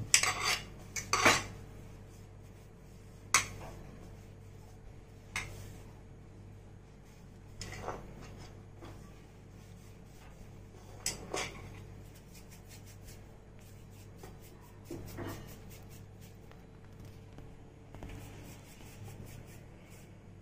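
Metal kitchen utensils clinking and tapping while dough is worked: a quick cluster of sharp clinks at the start, then single knocks every few seconds. A faint steady hum lies underneath.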